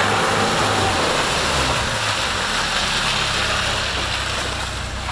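Lada Niva Travel SUV driving off-road, its 1.7-litre four-cylinder petrol engine running under a steady rush of noise. The engine's pitch shifts a little, and the whole sound slowly fades toward the end.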